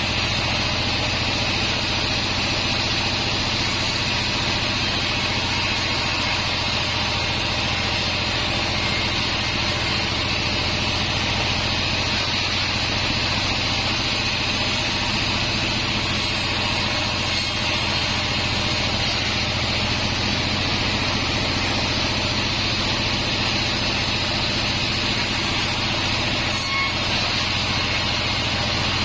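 Sawmill band saw running steadily, a constant low hum with a high hiss above it that does not change.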